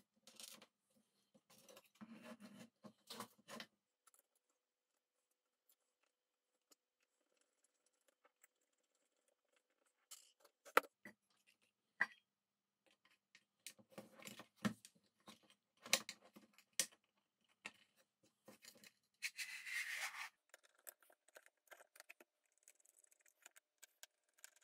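Quiet handling noise from hands working with small tools and parts: scattered sharp clicks and short scraping, rustling spells, with a denser scraping rustle lasting about a second near the end.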